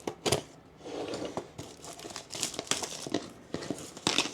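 Product box being opened by hand: packaging crinkling and tearing in irregular rustles, with a couple of sharp clicks just after the start.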